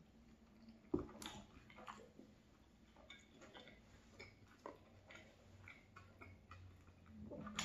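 Faint ticks and crackles of a flaky croissant being handled and chewed, with one sharp knock about a second in as a stainless steel mug is set down on a wooden board.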